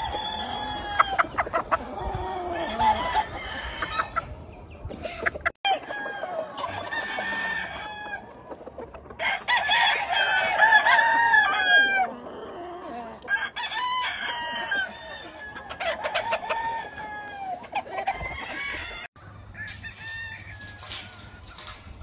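Gamefowl roosters crowing again and again, calls overlapping one another, with hens clucking in between; the crowing is busiest and loudest about halfway through.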